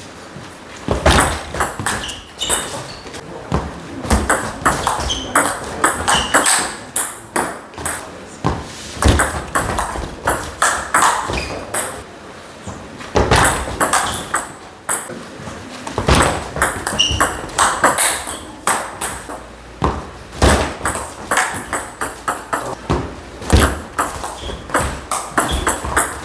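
Table tennis ball being struck back and forth with paddles and bouncing on the table in fast rallies: runs of sharp clicks a fraction of a second apart, broken by short pauses between points.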